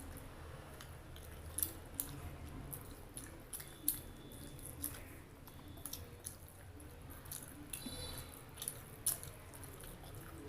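Close-miked eating sounds: wet chewing of chicken curry and rice, with sharp, irregular mouth smacks and clicks.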